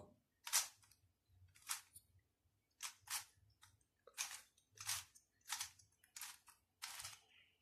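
Windmill cube, a plastic shape-mod of the 3x3 twisty puzzle, being turned by hand: about ten short, faint rasping clicks as its layers are twisted, one turn every half-second to second, a couple of them in quick pairs.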